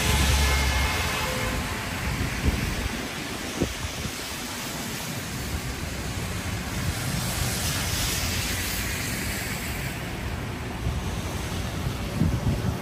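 Steady rain on an umbrella and a wet city street: a continuous even hiss. A low rumble of traffic on wet pavement is loudest in the first second, and a couple of sharp taps come about two and a half and three and a half seconds in.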